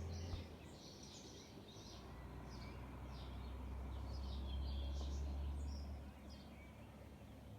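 Small birds chirping and twittering in quick, repeated short phrases. Under them runs a low rumble that swells in the middle and drops away about six seconds in.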